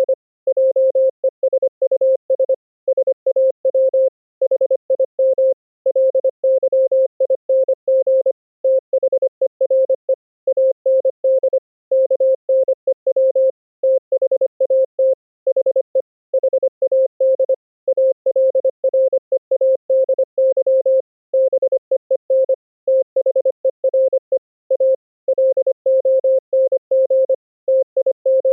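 Morse code (CW) as a single steady mid-pitched tone, keyed rapidly on and off in dits and dahs with short gaps between characters and words, carried over an Opus-codec internet audio link.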